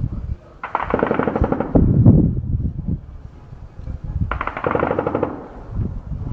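Two bursts of rapid automatic gunfire, each about a second long and about three and a half seconds apart. A deep rumble follows right after the first burst.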